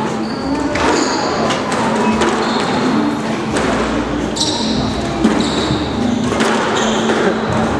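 Squash ball hit back and forth in a drill: sharp racket strikes and wall smacks about once a second, echoing around the court, with short high squeaks of court shoes on the floor.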